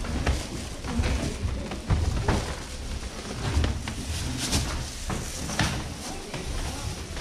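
Irregular knocking thumps of footsteps on a wooden floor and stairs as someone walks down, with faint voices behind.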